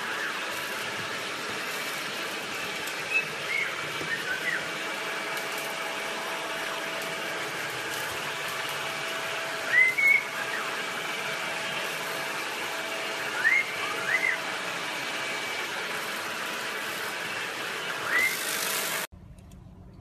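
Bosch cordless stick vacuum running with a steady motor whine, while a caique parrot gives about eight short, rising whistled chirps over it, the loudest about ten seconds in. The vacuum sound cuts off suddenly near the end.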